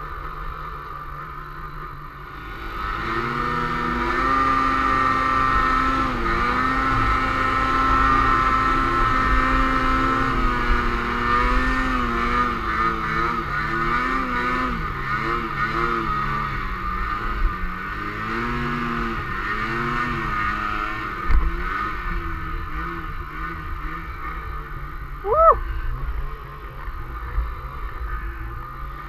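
Snowmobile engine running under throttle as the sled rides up a snowy slope. It gets louder about three seconds in, then its pitch rises and falls repeatedly with the throttle. A short whine that rises and falls comes near the end.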